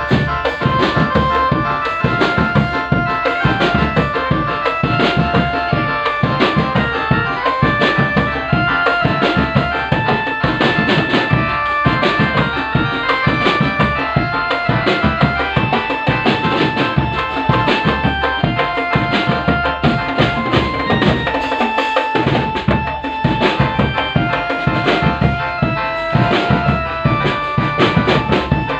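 Drum band music: dense, steady drumming with bass drum beats, and a melody of held notes running over it.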